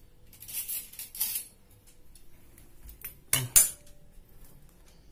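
Metal cutlery and dishes rattling as a spoon is fetched, with two sharp clinks about three and a half seconds in.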